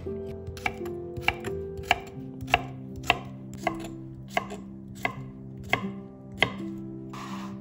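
Chef's knife chopping cucumber on a wooden end-grain cutting board, a sharp knock about every two-thirds of a second.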